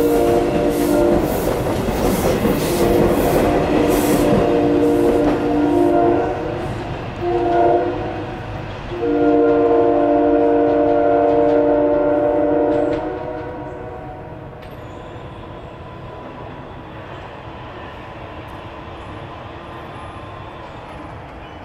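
A passing train's Nathan K3LA five-chime horn blowing the grade-crossing pattern: two long blasts, a short one and a final long one, over the loud clatter of wheels on rail. About thirteen seconds in, the horn stops and the train's rumble fades to a steady lower rolling noise.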